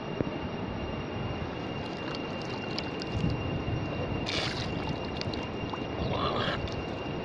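River water running steadily over stones, with two short splashy sounds as a man rinses his mouth with river water and spits after brushing his teeth, about four and six seconds in.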